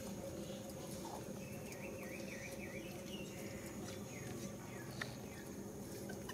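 Faint high chirping calls from a small animal: a quick run of about four rising-and-falling chirps about two seconds in, and a few more later. Underneath is a steady low hum, with a few sharp ticks near the end.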